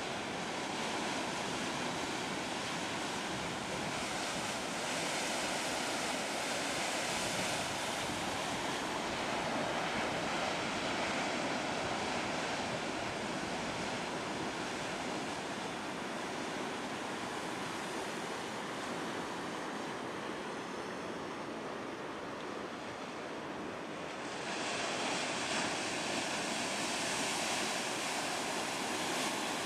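Storm surf breaking and washing, a steady rushing noise of whitewater. It swells a few seconds in and grows louder and brighter near the end as a wave breaks into foam.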